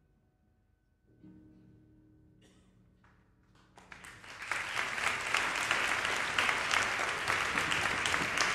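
A soft, held final chord from the opera's music, then a few scattered claps about two and a half seconds in. Audience applause breaks out about four seconds in and quickly swells to full, steady clapping.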